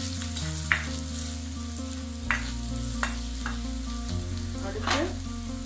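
Small onions and spice powders sizzling in hot oil in a kadai while a metal ladle stirs them, scraping and knocking against the pan four times.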